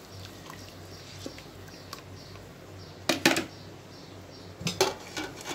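A spoon stirring rice in a stainless-steel pot of boiling water and knocking against the pot, a double knock about three seconds in and two more near the end, over a faint low hum.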